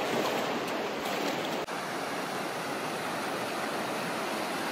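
The Virgin River's flowing water, a steady, even rush.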